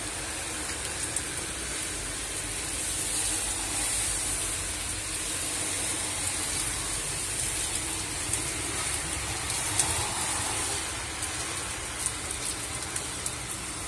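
Moderate rain shower falling steadily: an even hiss with a patter of drops, rising a little now and then.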